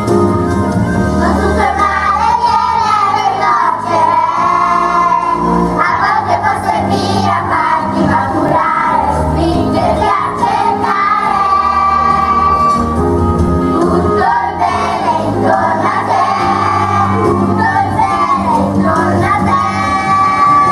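Children's choir singing a song over instrumental accompaniment, the young voices carrying a continuous melody above steady bass notes.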